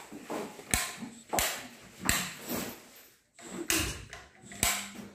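About five sharp clicks and knocks at uneven intervals, the sound of things being handled and switched.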